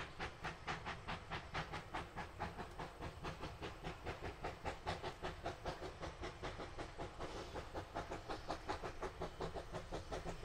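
Distant 2-foot narrow-gauge steam locomotive working under load, its exhaust chuffing in a quick, even beat of about four a second.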